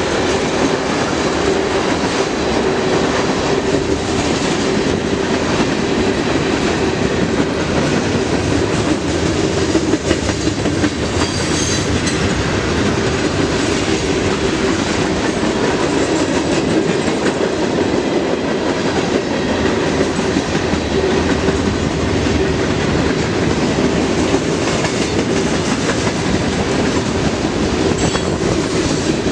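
Freight train passing at speed: the steady rumble of its cars and the clatter of steel wheels on the rails, with a steady mid-pitched tone running through it.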